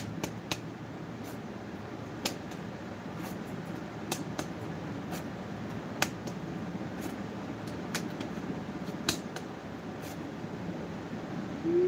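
Steady hum of a ceiling fan with scattered light clicks and taps from small objects being handled, the sharpest about six and nine seconds in.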